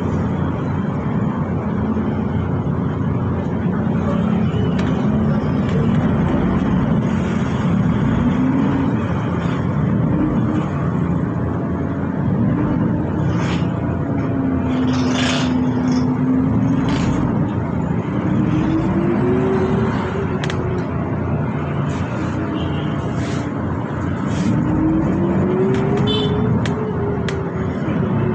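Transjakarta bus running through city traffic: a steady rumble of engine and road noise, with a whine that rises and falls in pitch as the bus speeds up and slows, and a few sharp clicks about halfway through.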